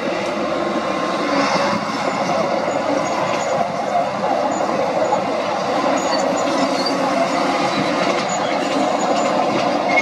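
Komatsu crawler bulldozer working as it pushes dirt: its diesel engine runs steadily under the clatter of its steel tracks, with a few short high squeaks.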